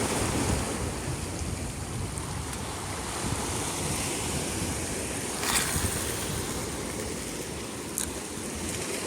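Sea waves washing on the shore with wind buffeting the microphone, a steady rushing noise. A brief hiss comes about five and a half seconds in and a sharp click near the end.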